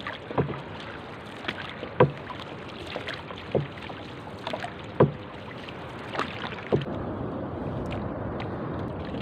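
Wooden paddle stroking a small outrigger canoe through the water, with a sharp knock of the paddle on the hull about every second and a half over water swishing. The knocks stop about seven seconds in, leaving steady water and wind noise.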